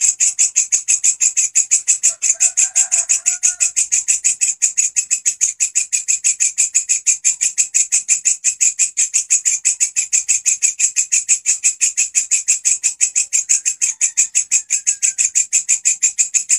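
Walang kecek bush cricket singing a loud, steady song of rapid, evenly spaced high-pitched pulses without a break. Faint chirps sound beneath it twice, about two seconds in and again near the end.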